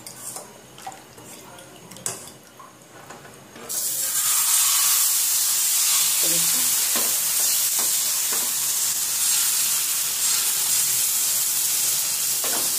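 Thin rava dosa batter sizzling on a hot tawa over a high gas flame: after a few faint clinks, a loud, steady sizzle starts suddenly about four seconds in as the batter hits the griddle, and keeps going.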